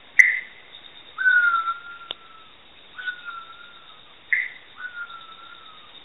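Sri Lanka bay owl calling: three long, slightly falling whistles, with two short, sharp higher notes between them.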